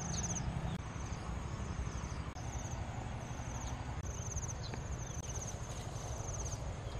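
Insect chirping in short, high, fast-pulsed trills repeated about once a second, over a low steady background rumble.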